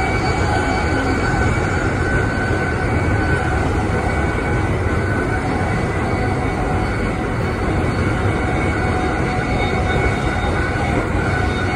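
Amtrak Northeast Regional passenger train running along the track, heard from on board: a steady, loud rumble of wheels on rail, with a few faint high steady tones above it.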